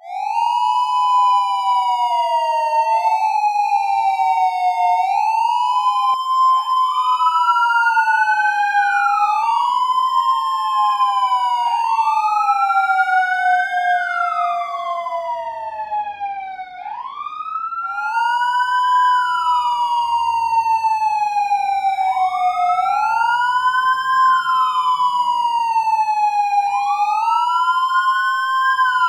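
Two police car sirens sounding the wail together, out of step with each other, each rising quickly and falling slowly in pitch about every five seconds.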